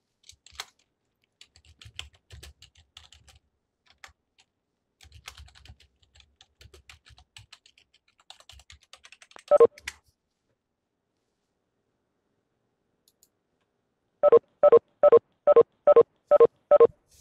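Faint computer keyboard typing and mouse clicks, with one louder short beep about ten seconds in. Near the end comes a run of eight short, evenly spaced electronic beeps, about three a second.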